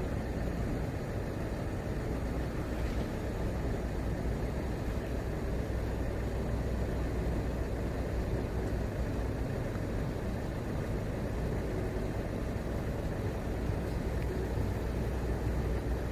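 Steady low rumble of a vehicle engine idling, with no distinct events.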